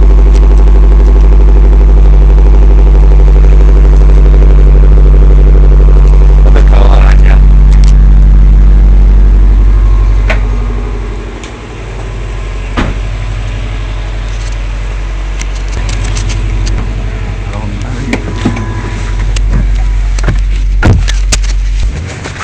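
Subaru WRX STI's turbocharged flat-four engine idling with a loud, steady low drone that drops noticeably quieter about ten seconds in, with a few clicks and faint voices after.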